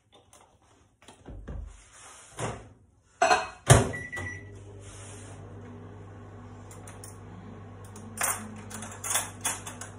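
A few knocks on the counter, then a microwave oven door bangs shut about three seconds in, a short beep sounds, and the microwave starts running with a steady hum. Near the end, cutlery clatters in a drawer.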